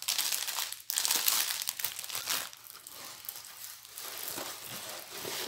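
Crinkling and rustling of a diamond painting kit's packaging being handled. It is loudest over the first two seconds or so, then goes on more softly.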